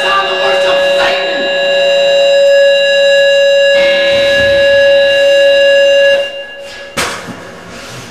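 Loud amplifier feedback: a steady, siren-like electric drone of several held tones that shifts about a second in and again near four seconds in, then cuts off about six seconds in. A sharp knock follows about a second later.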